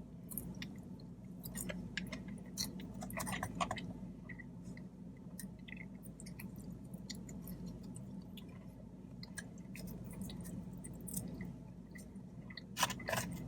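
Close-up chewing and mouth sounds of a person eating, with scattered small clicks and a brief louder mouth sound near the end.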